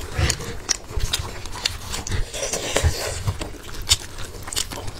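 Gloved hands tearing and pulling apart a sauce-covered braised sheep's head close to the microphone: wet tearing and squelching with many short clicks and cracks, and a few low thumps in the first couple of seconds.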